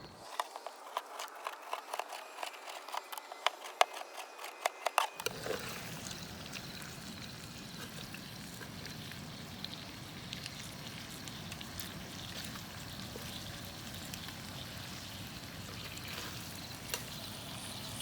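A quick run of sharp clicks and knocks for about five seconds, then steady pouring, trickling water.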